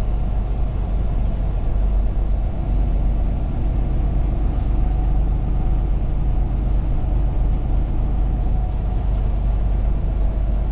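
Truck engine and road noise heard from inside the cab while driving, a steady low drone.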